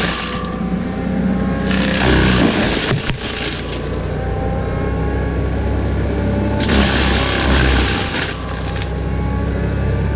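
Forestry mulcher running at full throttle, its engine and hydraulic tone climbing slowly as the drum comes back up to speed. Noisy bursts of brush and wood being shredded come around two seconds in and again from about seven to nine seconds.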